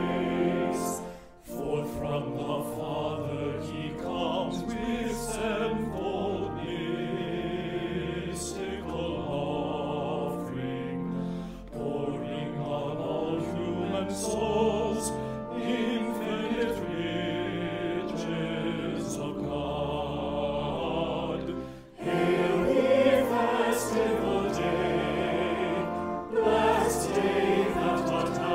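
Choir singing a hymn verse, with two short breaks between phrases. Near the end it comes back in louder for the refrain.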